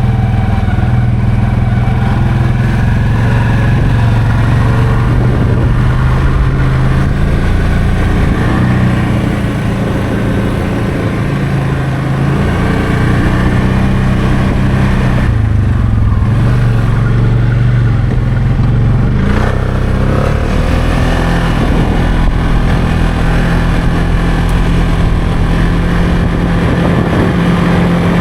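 Can-Am 700 XMR ATV engine running under way. The engine note falls and rises again a few times with the throttle.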